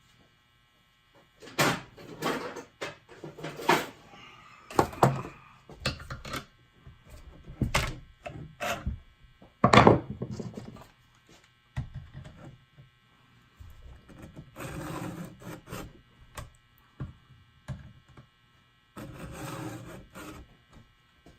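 Stihl 2-in-1 chain sharpener being pushed by hand across a chainsaw chain: a round file sharpens each cutter while a flat file takes down the raker. It makes irregular rasping file strokes and knocks, with two longer rasps near the three-quarter mark and near the end.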